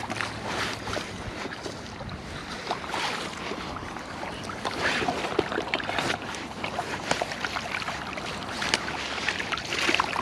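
Surf washing along the shore with wind on the microphone, and scattered small clicks and rattles throughout.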